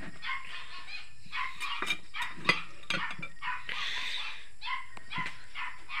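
Short animal calls, like yips and whines, come irregularly throughout, with a few sharp clicks among them.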